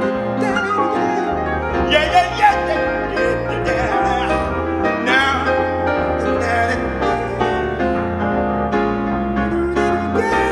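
Piano and electronic keyboards playing the slow closing passage of a live ballad.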